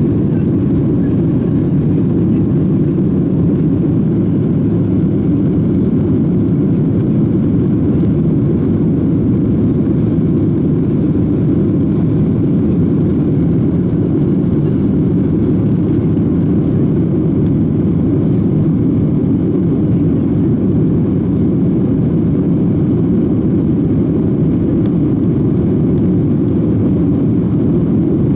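Steady roar of a Boeing 737-700's CFM56 jet engines heard from inside the cabin, even and unchanging throughout.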